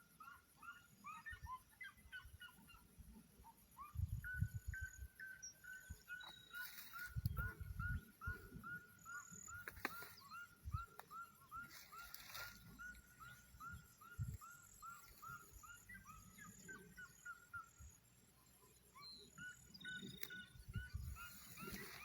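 Farmyard fowl calling in a long, fast run of short, evenly repeated calls, about two to three a second, broken off for a few seconds and resuming near the end. A few dull low thumps stand out, about four and seven seconds in.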